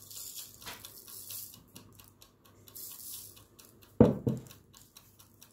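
Granulated sugar sprinkled by hand onto baked stollen loaves on baking parchment, a faint hiss of grains landing with small ticks. About four seconds in come two sharp dull knocks in quick succession.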